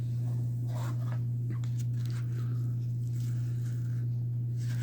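Packaging rustled and scraped in short spells as the knife's box is opened and its contents taken out, over a steady low electrical hum.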